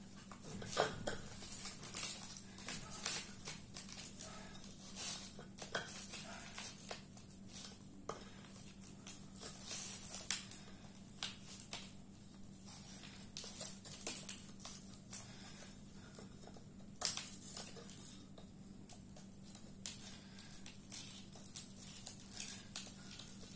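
Dried cow-dung and mud crust being broken and peeled off a clay pot by hand: irregular crackling and scraping as the crust flakes away, over a steady low hum.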